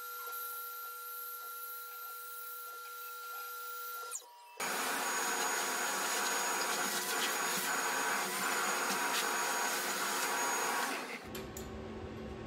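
Tormach 1100MX CNC mill cutting a pocket in plywood with a 1/4 inch end mill: a steady spindle whine over the hiss of the cut. About four and a half seconds in, a shop vacuum starts, running steadily for some six seconds as it clears chips from the mill bed, then cuts off, followed by a few light clicks.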